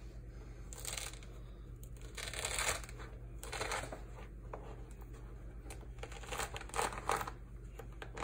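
Thick pomelo rind being pulled away from the fruit by hand: rough tearing and crackling of the spongy pith, in several separate pulls.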